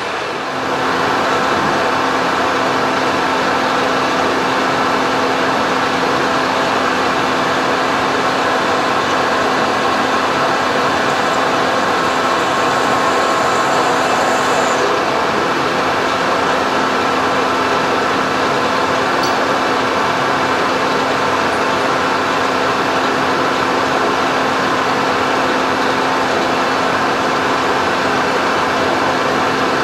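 Colchester metal lathe running steadily with its spindle turning a steel bar: a continuous mechanical whir with a steady low hum.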